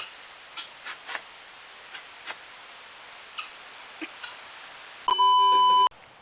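Faint scattered clicks and ticks over a low hiss. Near the end comes a loud, steady electronic beep lasting under a second, which starts and cuts off abruptly.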